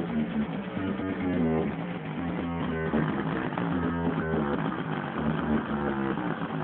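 Guitar music: plucked notes changing quickly over a steady low bass line.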